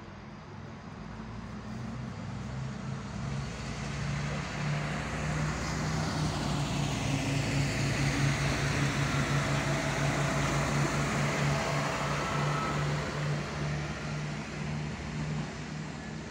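A Siemens Desiro diesel multiple unit passing through a station, its diesel engine running with a steady, slightly pulsing low drone over the hiss of the wheels on the rails. The sound builds as it approaches, is loudest about halfway through, then fades as it moves away.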